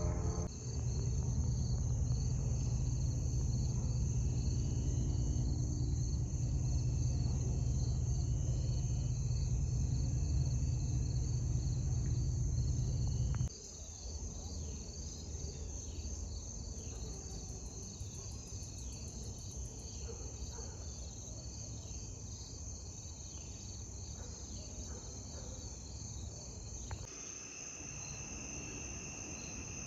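Insects, crickets or similar, trilling steadily at a high pitch. For about the first half a louder low rumble lies under them, which stops abruptly.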